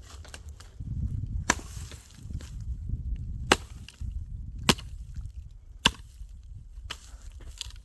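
Dry wood being chopped: four sharp, loud strikes about one to two seconds apart, with a few fainter knocks between them.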